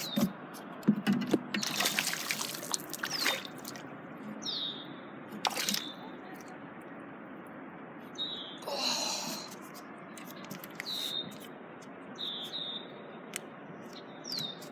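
Water splashing and trickling with a few knocks for the first few seconds, then a bird repeating short down-slurred chirps every second or two.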